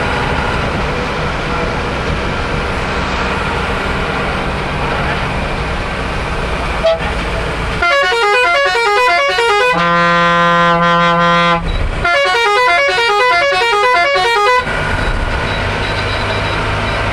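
Engine and road noise inside a tour bus cabin. About eight seconds in, a multi-tone musical horn plays a fast alternating tune for about seven seconds, holding one chord briefly in the middle.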